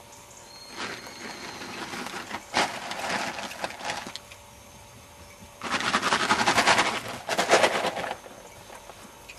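Two bursts of rapid, dense rattling clicks, each about two and a half seconds long: one starting about a second in, the second starting near six seconds in and louder.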